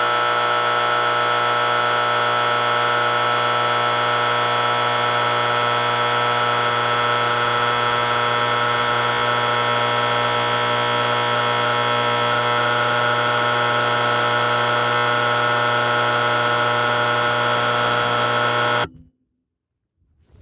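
Vintage Simplex 4037-1 electromagnetic fire alarm horn, run off a 12 V AC transformer, sounding continuously with a steady buzzing tone, then cutting off abruptly about 19 seconds in.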